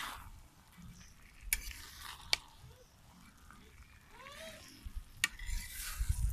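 Long metal ladle stirring and scraping food in a hot metal wok over a faint sizzle, with three sharp clanks of the ladle against the pan.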